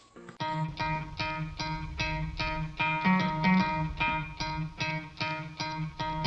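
Background music: a plucked guitar riff of quick, evenly repeated notes over a steady low pulse, the intro of a rap track.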